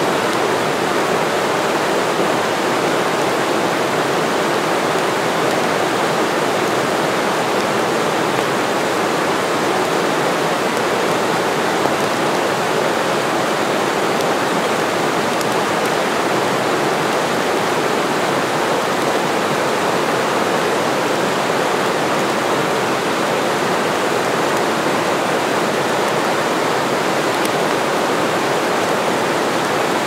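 Small waterfall pouring in thin strands down a mossy rock face and splashing onto the rocks below: a steady, even rush of falling water.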